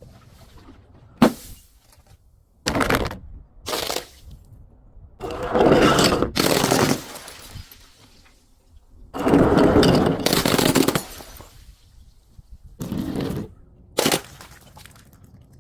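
Brittle objects cracking and crunching as they are crushed. A sharp crack comes about a second in, then a run of crunching bursts, the longest about six and ten seconds in.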